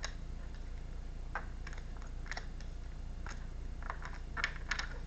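Tarot cards being handled: scattered light clicks and snaps at an uneven pace, a few sharper ones near the end, over a steady low hum.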